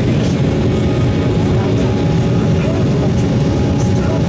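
Steady engine and airflow noise inside the passenger cabin of an Embraer 190 jet airliner in flight, from its two turbofan engines.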